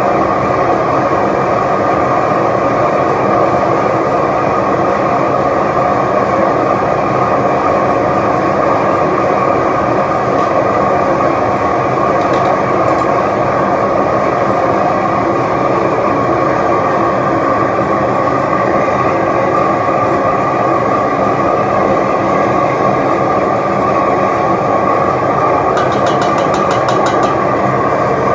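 Propane-fired melting furnace burner running at full flame: a loud, steady rushing roar that holds without change, with a faint quick ticking near the end.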